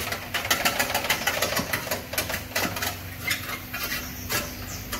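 Rapid, irregular metallic clicking and clinking, thick for about the first three seconds and then thinning out, over a faint steady hum.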